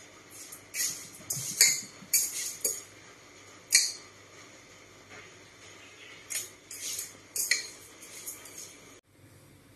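Rice being washed by hand in a rice cooker's inner pot: grains rubbed and swished against the pot in short scratchy strokes with brief pauses, stopping abruptly near the end.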